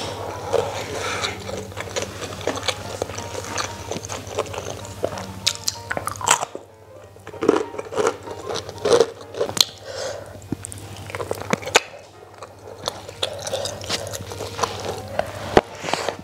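Close-miked chewing of a mouthful of nasi padang, with many short sharp crunches and mouth clicks throughout.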